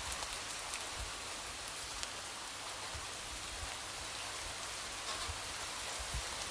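Steady light rain with scattered drops tapping on a window, and a few soft low thumps of heavier drops.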